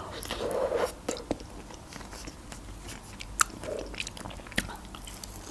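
Biting into a slice of quiche with shortcrust pastry and chewing it, close to the microphone, with a few small sharp mouth clicks.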